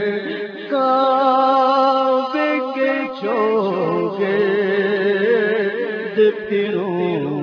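A solo voice singing an Urdu naat (devotional hymn) in long, drawn-out melismatic phrases with wavering vibrato, the words not clearly articulated, over a steady low tone.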